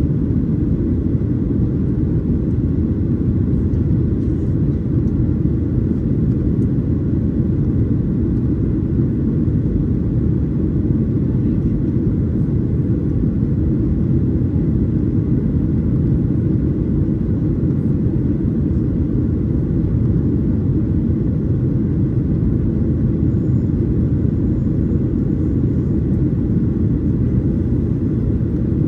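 Steady low rumble of a Boeing 737-800's CFM56-7B engines and airflow, heard inside the passenger cabin from a window seat.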